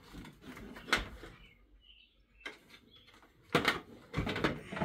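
A few light knocks and clicks of hard plastic wheel parts being handled, the loudest a little over three and a half seconds in, with a faint short chirp about two seconds in.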